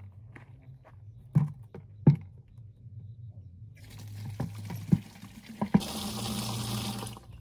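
Water running from the tap of a plastic water tank into a plastic bucket. The flow starts a little after halfway, grows louder about six seconds in, then cuts off just before the end. A few sharp knocks come before it, the loudest about two seconds in.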